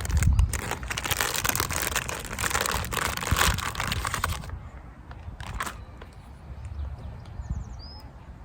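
Kendama packaging crinkling and rustling as it is torn open, for about four and a half seconds, then quieter with a couple of sharp clicks.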